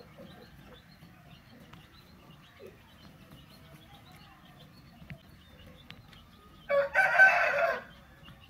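A rooster crows once, loudly, for a little over a second near the end, with faint clucking before it.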